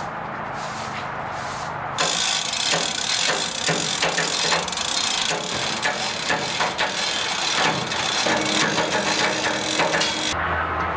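Manual chain hoist on a steel gantry crane being worked: its chain rattles and the mechanism clicks rapidly. The rattling starts about two seconds in and cuts off suddenly near the end, with a low steady hum before it.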